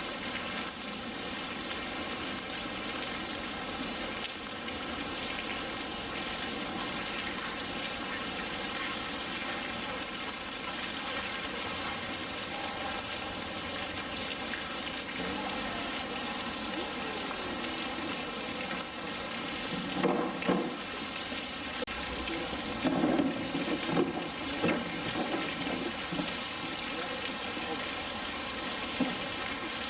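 Steady rush of running water. A few louder, irregular bursts of splashing or knocking come about two-thirds of the way through.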